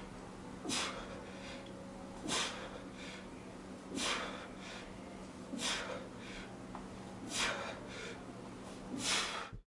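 A man breathing hard from exertion, with a heavy exhalation about every second and a half, six in all.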